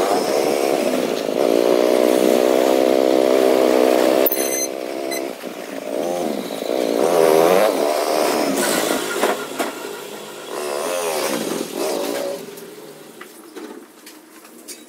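A motor vehicle's engine running, its pitch holding steady and then rising and falling as it revs. It is loudest over the first few seconds and fades after about twelve seconds.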